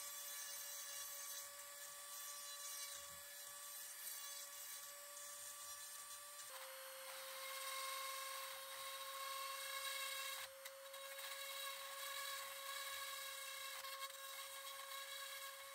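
Handheld rotary tool with a thin pointed bit running at high speed, grinding rust off an old iron horseshoe: a steady, faint high whine that steps slightly lower in pitch about six and a half seconds in.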